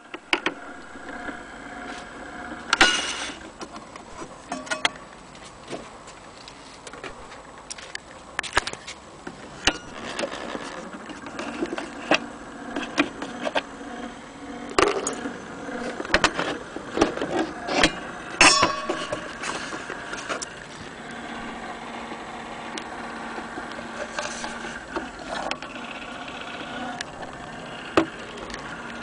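Vintage gramophone's clockwork spring motor and governor running with a steady buzzing whir, broken by sharp clicks and knocks from handling the mechanism and the wooden cabinet.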